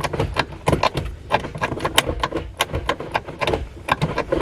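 A quick, irregular run of clicks and knocks, several a second, from hard objects being handled.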